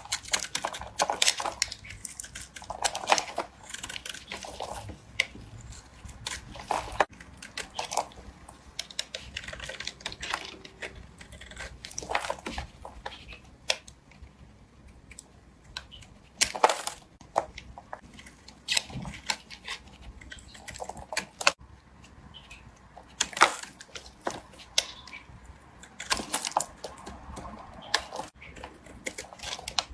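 A knife cutting and carving a bar of soap: crisp, irregular cutting and scraping strokes, some sharp and loud, with small crumbly scraping between them.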